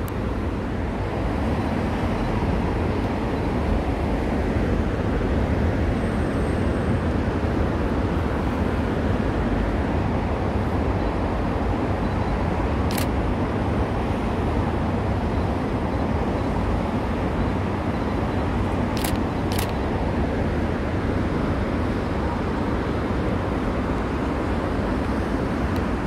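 Steady hum of road traffic on the bridge and riverside expressway below, heard from a height, with a few faint sharp clicks about halfway through.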